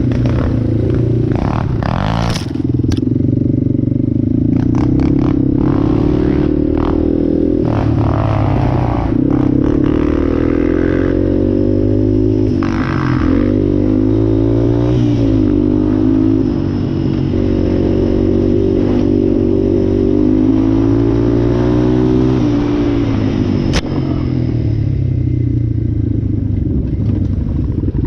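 Yamaha ATV's single-cylinder engine running while riding, its revs rising and falling over and over with the throttle, with rattling from the machine over rough ground and a few sharp knocks.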